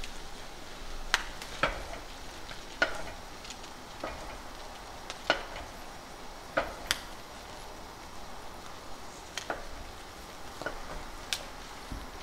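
Wooden spoon stirring cranberries simmering in sugar and orange juice in a saucepan, over a steady sizzle. About ten sharp clicks and pops are scattered through, at the gentle boil where the berries burst open.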